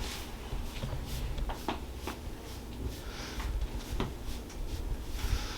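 Quiet handling sounds on a chiropractic treatment table: scattered light clicks and rustling over a low room hum, with a short hissing swell about three seconds in and another near the end.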